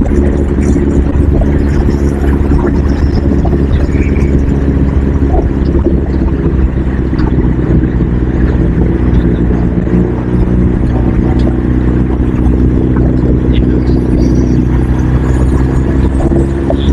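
A motor vehicle engine running steadily at an even pitch, with a strong low rumble underneath.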